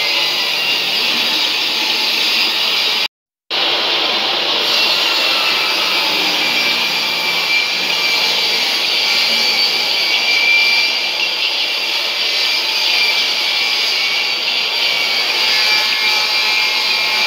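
Steady stadium crowd din, a dense roar from the stands with no single voice standing out, cutting out completely for a moment about three seconds in.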